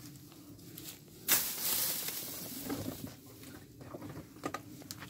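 Dry grass and undergrowth rustling and crackling as a scooter is pushed through it, with one louder brushing swish about a second in and scattered snaps of dry stems later.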